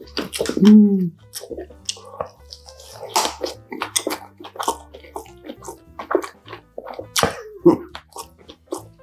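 Close-miked eating sounds of dumplings being chewed: irregular wet, squelchy smacks and crunches, with a short falling hum from the eater about a second in.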